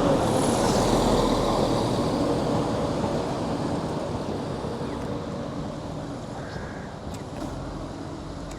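A train moving away through the station, the rumble of its wheels on the rails fading steadily until it cuts off abruptly near the end.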